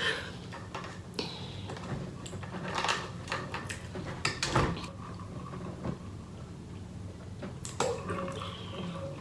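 Mouth and handling noises: scattered small clicks and rustles as an insulated water bottle is picked up and opened, then water gulped from it near the end, over a low steady hum.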